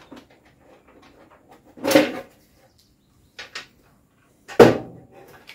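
Plastic front cover of a Nemtek Wizord 4 electric fence energizer being unclipped and pulled off: faint ticking, a loud knock about two seconds in, a pair of small clicks, then another loud knock near the end.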